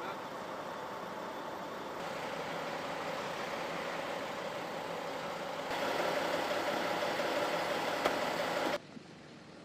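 Steady motor-vehicle engine noise in several clips joined by abrupt cuts, louder in the middle section, then a sudden drop to quieter background noise near the end.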